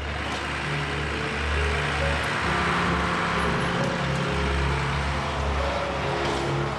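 Old Bedford army truck's engine running steadily under load while its winch hauls it up a steep slope, with a constant low drone.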